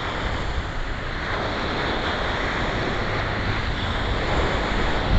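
Ocean surf breaking and washing up the beach in a steady wash, with wind rumbling on the microphone.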